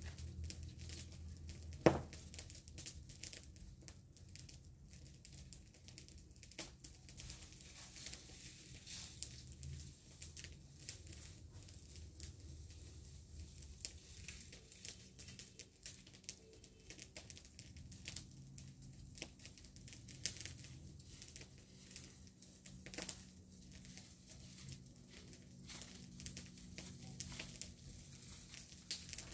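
Faint, irregular crackling and rustling of dry grass and leaves, with one sharp snap about two seconds in.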